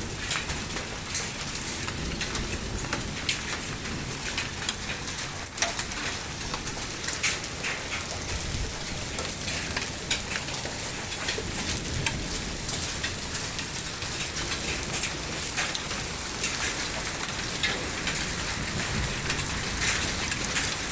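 Hailstorm: a dense, steady hiss of heavy rain with many sharp ticks of hailstones striking hard surfaces.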